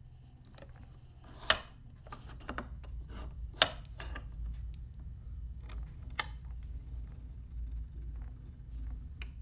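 Hands handling and shifting a handcrafted wooden puzzle box: scattered light clicks and knocks, a few sharper ones spread through, over a faint low rumble.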